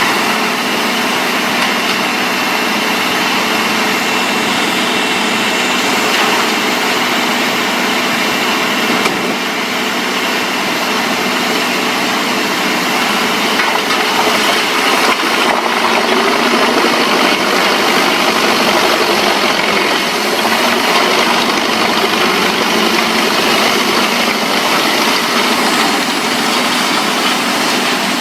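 An engine-driven machine running steadily with dense mechanical noise. It dips briefly about a third of the way in, then grows a little louder.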